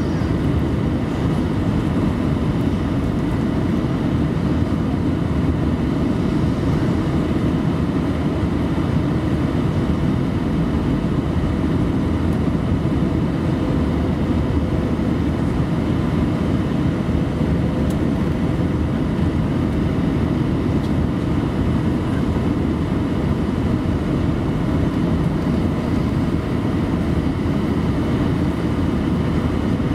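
Steady cabin roar inside an Airbus A319 on final approach with flaps extended: its CFM56 engines and the rushing airflow, heaviest in the low range, with a few faint steady tones on top.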